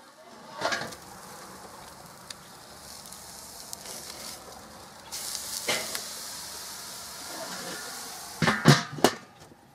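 Porterhouse steak sizzling on the grate of a Weber charcoal kettle grill, the sizzle getting louder about halfway through once the steak is turned over. Sharp clanks of the steel lid and grill fork come near the start, about halfway, and in a quick cluster near the end as the lid goes back on.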